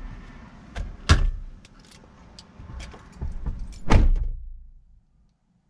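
Clicks, rattles and knocks from someone moving about and getting out of a pickup truck's cab, with a loud knock about a second in. A car door slams shut about four seconds in.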